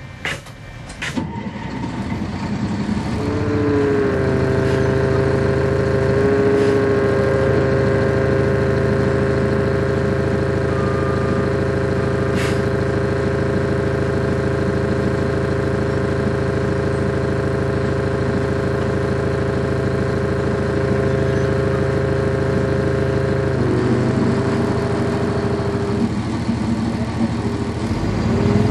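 Cummins ISC six-cylinder diesel of a 1999 Nova Bus RTS transit bus, heard on board. After a few clicks at the start, the engine pulls away with a rising note, then runs steadily for about twenty seconds. The note drops about 24 seconds in and picks up again near the end.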